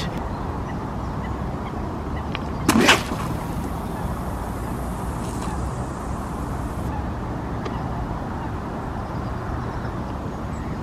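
A carp rod being cast: a sharp swish about three seconds in, then a few seconds of line hissing off the reel that stops abruptly, over a steady low background rumble.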